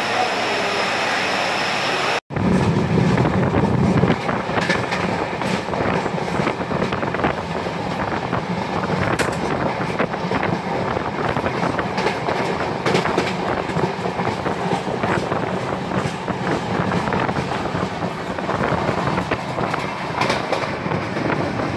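Moving train heard from on board: the carriage rumbling and rattling, with wheels clicking over rail joints, starting after a brief cut about two seconds in.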